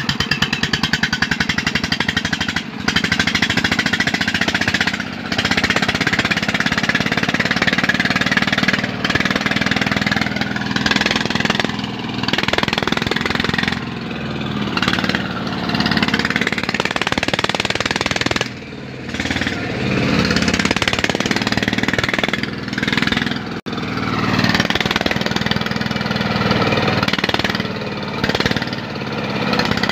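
Single-cylinder diesel engine of a công nông two-wheel tractor, running with a rapid, hammering beat while it pulls a trailer loaded with coffee sacks. It eases off briefly twice in the later part.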